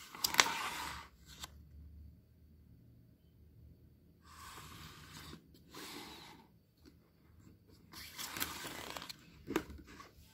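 Pages of a paperback picture book being turned by hand: a loud papery swish about half a second in, then further rustling swishes of paper later on as more pages turn, the last one brief, near the end.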